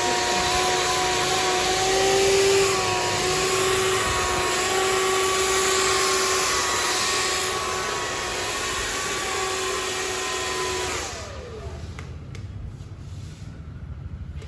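Handheld hair blow dryer running: rushing air with a steady whine. About 11 seconds in it is switched off, and the motor winds down with a falling whine.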